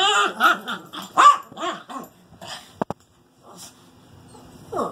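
Excited chihuahuas growling and barking in a rapid, rough string of play noises for the first two seconds or so, then a short click, a lull, and one more sharp bark near the end.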